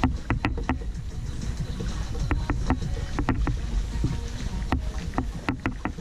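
Kayak out on the water: a steady low rumble of water and wind, with many irregular sharp clicks and taps, several a second, typical of a paddle working against the hull and water.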